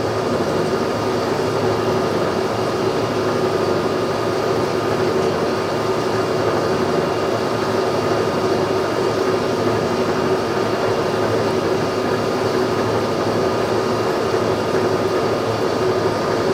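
Boring machine running steadily as its boring bar turns in the cut, boring out a worn hole in a steel suspension frame; a continuous hum with a few steady tones over a rough grinding noise.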